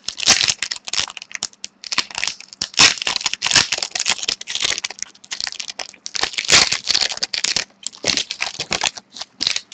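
Hockey card pack wrapper being torn open and crinkled, with the cards handled, in irregular crackling rustles.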